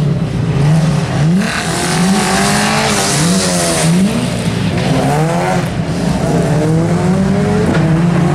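Talbot Sunbeam rally car's engine revving hard, its pitch climbing and dropping back four or five times in quick succession, then settling to a steadier note. Its tyres squeal briefly in the middle.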